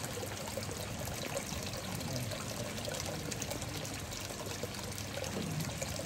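Water pouring steadily from a hose outlet into a koi pond, splashing and trickling on the surface.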